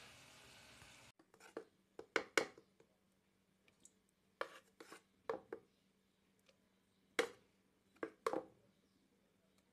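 Faint steady hiss of a pot of zucchini simmering, stopping abruptly about a second in. Then about a dozen sharp, irregular clicks and knocks of a utensil against a metal saucepan as flour is added to milk and water, the loudest around two seconds in and again after seven seconds.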